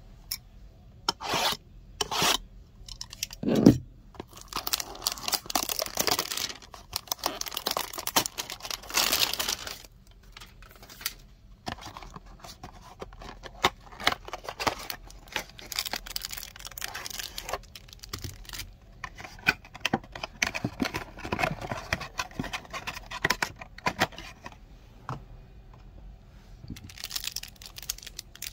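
Hands tearing open the cellophane and cardboard of a Panini Select basketball hanger box, with a few sharp rips in the first four seconds, the loudest about three and a half seconds in. Long stretches of crinkling plastic and paper follow.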